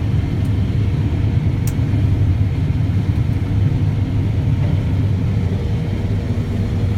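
John Deere combine harvester running steadily under load while cutting wheat: a deep, even drone with a faint steady hum above it. One sharp click about one and a half seconds in.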